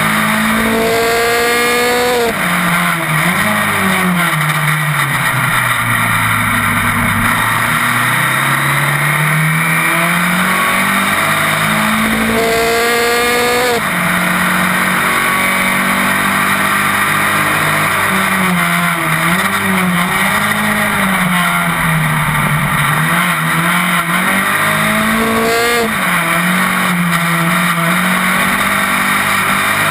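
Open-wheel racing car's engine running hard at race pace, close up on the car, its pitch climbing and dropping again and again through gear changes, with a sharp rise three times. Constant wind and road noise runs underneath.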